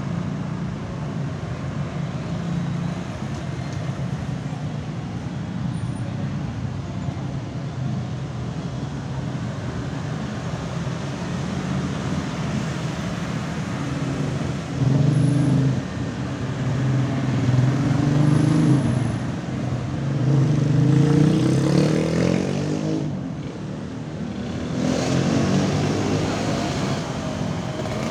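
Road traffic: motorbikes and cars driving past over a steady traffic hum. Several louder pass-bys swell and fade in the second half.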